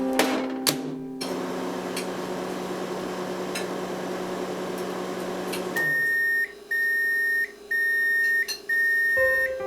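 A few clicks, then an old microwave oven running with a steady hum for about five seconds. It stops and gives four long beeps, signalling the cycle is done.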